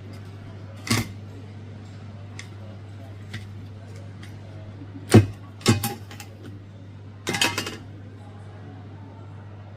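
A few sharp knocks and clattering of small hard objects over a low steady hum: one knock about a second in, two louder ones around five to six seconds in, and a short rattle near the end.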